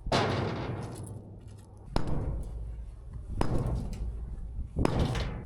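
Four heavy strikes about a second and a half apart, each followed by a clattering rattle of debris, as old concrete is broken up.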